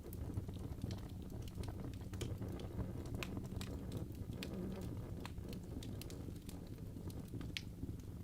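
Fire burning in a fireplace, crackling with irregular sharp pops over a steady low rumble of the flames.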